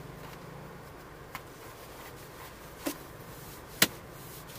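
Faint steady background noise with three short, sharp clicks, the third and loudest a little before the end.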